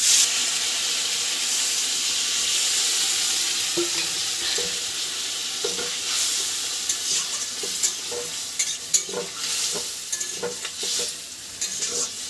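Water poured into a pan of fried spice paste for a prawn and taro curry, setting off a loud sizzle that jumps up at the start and slowly settles. From about four seconds in, a spoon stirs and scrapes the pan with short knocks.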